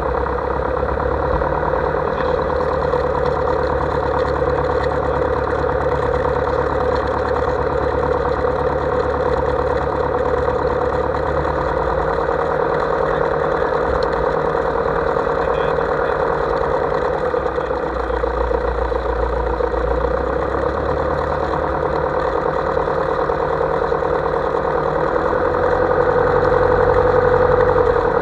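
Light airplane's piston engine and propeller running steadily at low taxi power, a little louder near the end.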